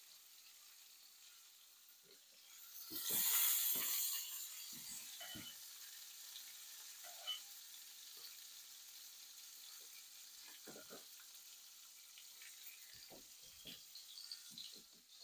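Pancake batter sizzling in a hot frying pan. The sizzle flares up loudly about three seconds in, then settles into a steady, fainter sizzle, with a few soft knocks scattered through it.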